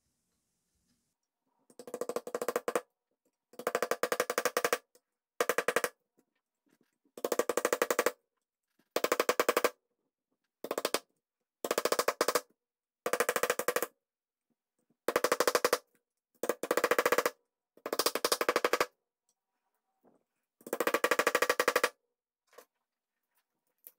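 Twelve short runs of very rapid metallic taps, each under about a second long: a hammer or mallet striking the back of a steel knife blade set into the old wooden handle of a cast-iron sad iron, splitting the wood to take the handle off.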